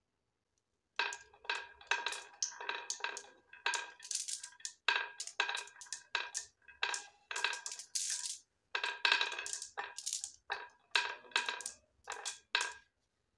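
Glass marbles being fed into a winding groove in a wooden track, clacking against the wood and against each other. They come in quick clusters of sharp clicks, each with a short ringing, starting about a second in and stopping shortly before the end.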